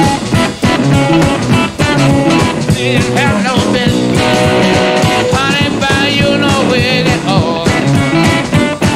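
Live electric blues played by a trio of two electric guitars and drums, with a steady drum beat. In the middle the lead guitar plays high, wavering, gliding notes.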